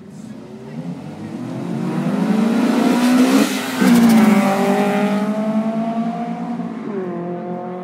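A car accelerating hard past at full throttle, its engine climbing in pitch. About three and a half seconds in it briefly cuts out for a gear change. It is loudest just after, as it passes, and fades as it pulls away, with another brief shift near the end.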